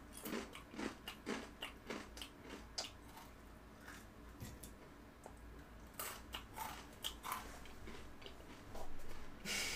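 Crisp crunching as dry green-onion-flavoured Chex Choco cereal is chewed without milk: a quick run of crunches, about two a second for the first three seconds, then sparser crunches. A louder rush of noise comes near the end.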